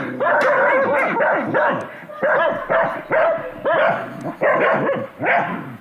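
A medium-sized black-and-tan dog barking over and over, about two barks a second, excited for food held above it.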